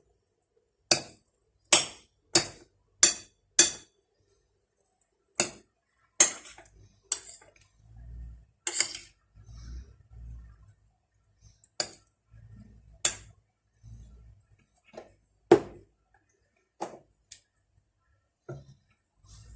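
Sharp clinks of a utensil knocking against a dish, a quick run of five about a second in, then single strikes every second or two, with soft low thuds in between.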